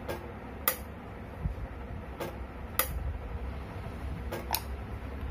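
Flovell F01D12 pneumatic fluid dispenser switching its air valve on and off on its timer: six sharp clicks, spaced alternately about 1.5 s and 0.6 s apart, matching a setting of 1.5 s on and 0.6 s off.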